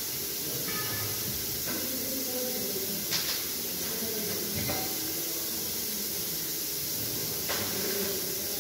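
Steady hiss with about four faint, short knocks spread through it, from metal parts of a truck gearbox being handled by hand.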